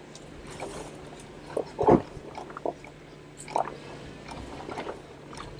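Jeep crawling over trail rocks: its engine runs low and steady under scattered sharp knocks, creaks and crunches from the tyres and suspension, the loudest about two seconds in.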